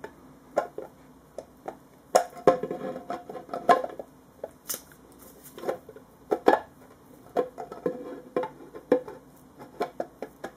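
Hard plastic parts of a Ubiquiti IsoStation M5 being handled and fitted together: a scatter of sharp clicks and knocks with some rubbing, as its shroud is worked back onto the unit.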